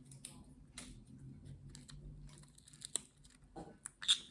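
Green-cheeked conure's beak nibbling and crunching walnut pieces: scattered small clicks and crackles, with a sharp click about three seconds in and a louder brief sound near the end.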